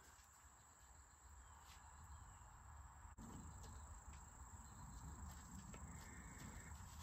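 Near silence with a faint, steady high-pitched insect drone.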